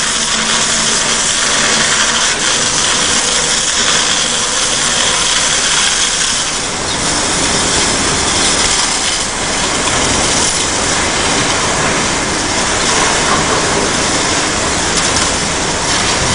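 A high-pressure water jet spraying from a hose, a steady loud hiss, with an engine running underneath.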